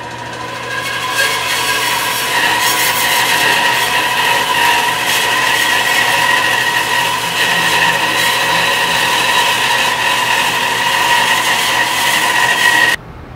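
Bandsaw cutting through a thick block of maple: a steady high whine over the rasp of the cut, building up about a second in, then cutting off suddenly near the end.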